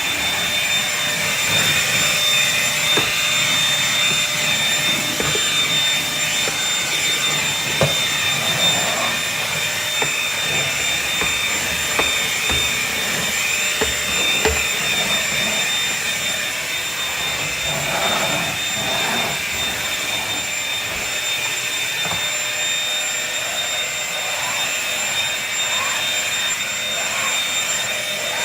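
Bissell Featherweight stick vacuum running steadily while cleaning, a constant high-pitched motor whine with occasional small ticks.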